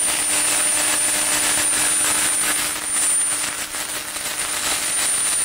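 Sullair rotary screw air compressor running under electric motor drive: a steady machine noise with a constant hum and a high, thin whine over it.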